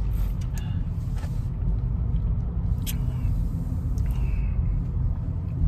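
Low steady rumble of a car heard from inside its cabin, with a few faint clicks scattered through it.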